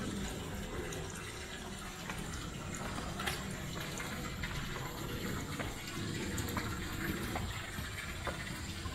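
Footsteps of high-heeled mules on stone steps, sharp heel clicks about once a second, over a steady rushing background noise.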